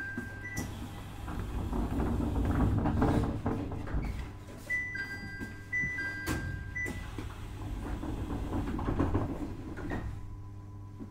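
Interior running sound of a JR East 701-series electric train on the Tohoku Main Line: wheels rumbling and clacking over rail joints over a steady low hum. A level-crossing warning bell rings in two alternating tones as the train passes it, once at the start and again about five seconds in.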